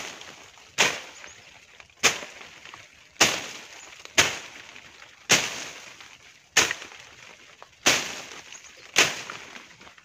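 A long curved machete slashing through brush in steady swings: eight sharp cutting strokes, about one a second, each trailing off in a short rustle of leaves.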